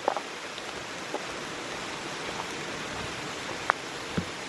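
Steady rain falling, an even hiss with a few sharp taps scattered through it, two of them near the end.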